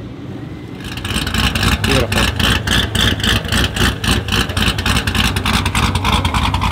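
Chevrolet C7 Corvette's V8 exhaust running loud and choppy, with rapid even pulses, starting about a second in.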